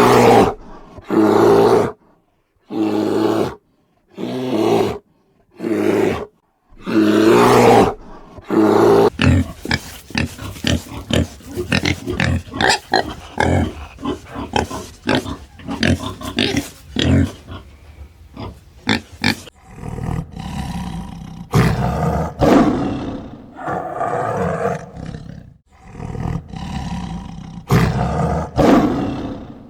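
Farm animal calling loudly: a series of separate calls about a second long, then a run of rapid short calls, then more long calls.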